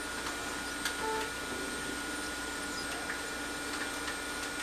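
Desktop printer running steadily as it draws an envelope through and prints the address on it.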